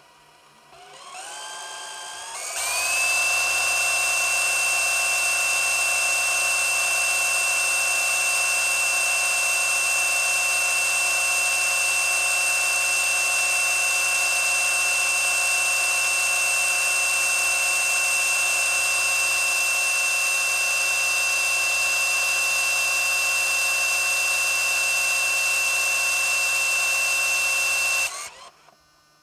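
MiniDV camcorder rewinding its tape: the transport motor spins up with a rising whine over the first couple of seconds, runs at a steady high whine for about 25 seconds, then stops near the end.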